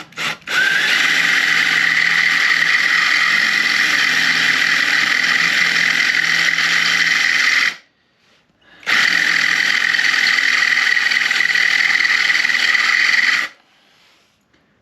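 Electric drill running under load as its bit bores into the motorcycle's swing arm: a few short trigger blips, then two long steady runs of about seven and four and a half seconds with a short pause between.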